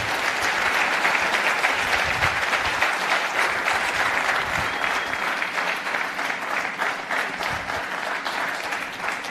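Audience applauding: dense clapping that slowly thins and fades toward the end.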